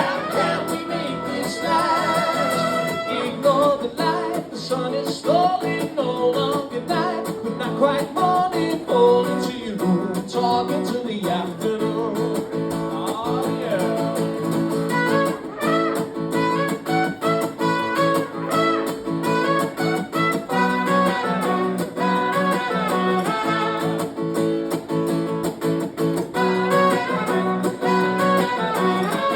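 Live band music: guitar playing an instrumental passage of a song between sung lines, with a steady rhythm of struck notes.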